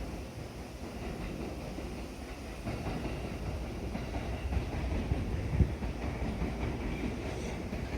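Train running over the rails at a level crossing, wheels clattering over rail joints, the rumble growing louder about three seconds in as it comes closer.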